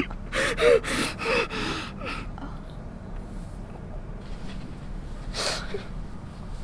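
A man crying: a run of short gasping sobs with brief voiced catches over the first two seconds, then a quieter stretch, and a sharp sniffling breath about five and a half seconds in.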